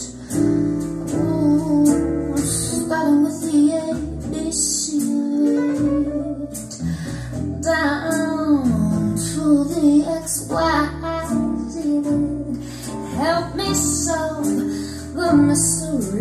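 A song with a high singing voice and guitar, played through a pair of floor-standing loudspeakers driven by a Yamaha AX-500 integrated amplifier, heard from the room.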